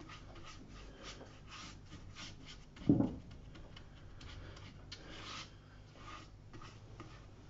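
Soft swishing strokes of a wet flat brush sweeping clean water across watercolour paper, wetting it all over before the first wash. There is a brief louder bump about three seconds in.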